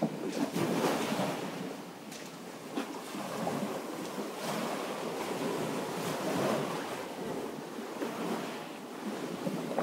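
Small sea waves washing in and out over a pebble shore, the wash swelling and easing every few seconds.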